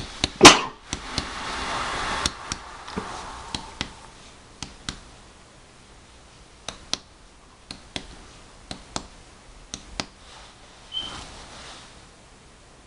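Chest percussion on a man's back: a finger tapping sharply on another finger laid against the back, in short taps that often come in quick pairs, with one much louder knock about half a second in. The taps work down the back with the breath held out, feeling for where the resonant note turns dull over the diaphragm.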